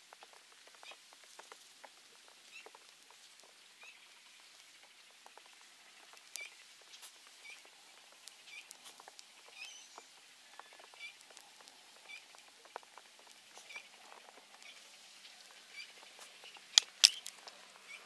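Small twig campfire crackling with many light pops, while a faint high chirp repeats about once a second. Two loud sharp cracks come close together near the end.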